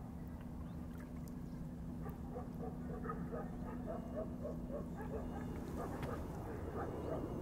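A run of short animal calls, several a second, over a steady low hum.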